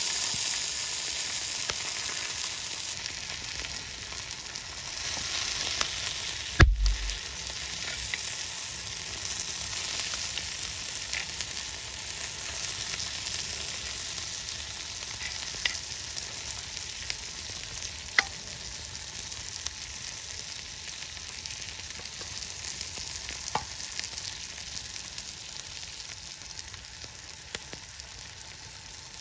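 Food sizzling and frying in a pan over a camp stove, a steady crackling hiss with scattered small pops and a single sharp knock about six and a half seconds in.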